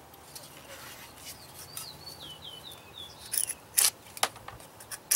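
A sharpened axe bit shaving curls off a stick of wood: a few sharp cutting strokes in the second half, the loudest at the very end. The edge has a thick 25-degree bevel, so the wood bends and splits along the grain instead of slicing cleanly. A bird chirps a quick run of falling notes midway.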